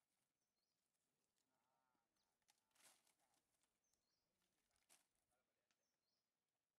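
Near silence: the sound track is almost muted, with only the faintest traces of sound.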